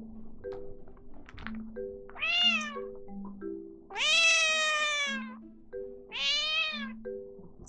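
Genetta cat (Munchkin–Bengal cross) meowing insistently three times, the middle meow long and the loudest, begging for the owner's snack. Light mallet-percussion background music plays throughout.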